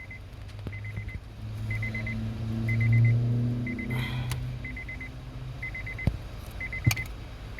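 An electronic beeper sounds a short rapid burst of high beeps about once a second, while a low engine hum swells to its loudest about three seconds in and then fades; a few sharp clicks sound in the second half.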